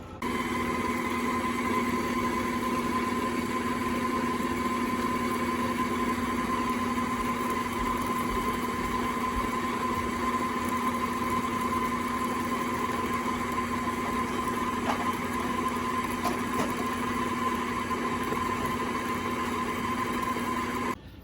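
Electric mixer running steadily, creaming sugar and lard together, with an even motor hum that stops just before the end.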